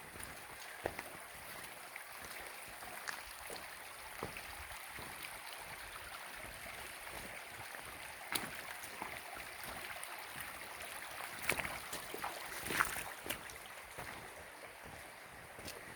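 A shallow stream flowing steadily over rocks, with scattered short clicks and knocks throughout, the loudest a cluster near the end.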